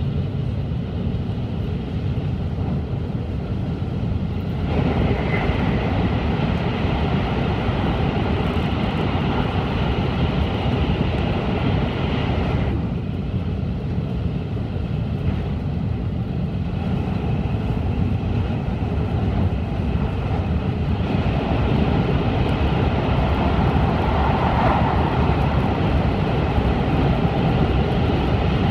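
Interior running noise of an N700-series Shinkansen at speed: a steady deep rumble with a rushing hiss that swells and eases every several seconds. It grows louder in the last few seconds as the train enters a tunnel.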